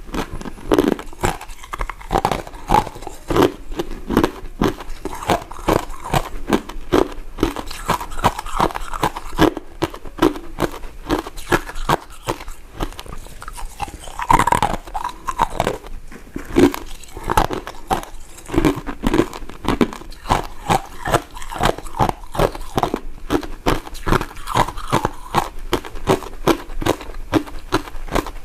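Close-miked chewing and biting of soft, powder-coated mint sweets: a continuous run of mouth clicks and smacks, several a second.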